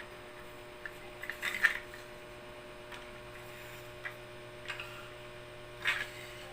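Toys being handled, with a few light clicks and knocks, the loudest about a second and a half in, over a steady electrical hum.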